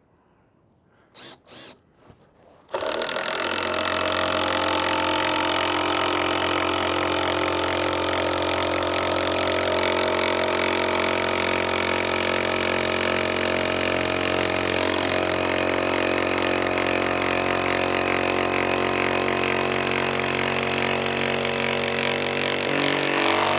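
Power drill driving a long bolt-type screw into timber: a few short clicks, then about three seconds in the motor starts and runs steadily and loudly, changing slightly in pitch near the end as the fixing goes home.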